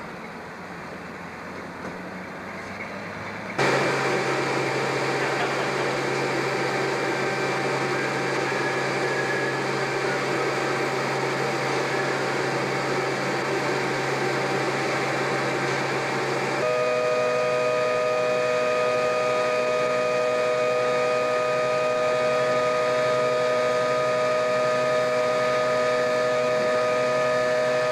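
Steady engine noise of a large car-ferry hovercraft with a low hum, starting abruptly a few seconds in; a little past halfway it switches abruptly to a louder steady whine made of two clear tones over the noise.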